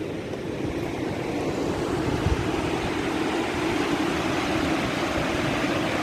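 Steady rush of a fast, silt-laden mountain river pouring over rocks.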